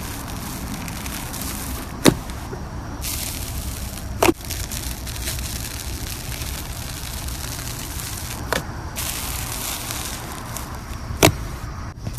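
Crackling, crunching hiss of a crunchy play material (slime or kinetic sand) being pressed and squished, broken by four sharp clicks.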